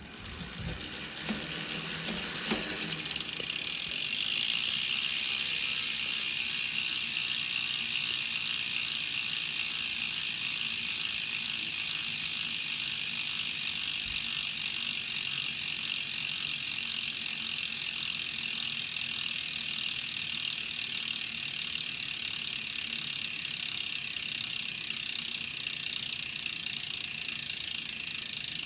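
DT Swiss 370 rear hub freewheeling: its three pawls click over the 24-tooth ratchet in a fast, steady high-pitched buzz that builds over the first few seconds.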